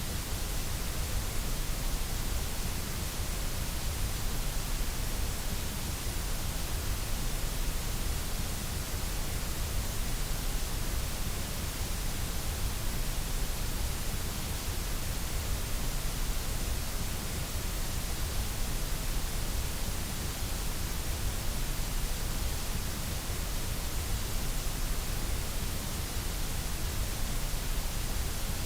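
Steady electronic white noise: a constant, even hiss over a low rumble, unchanging throughout.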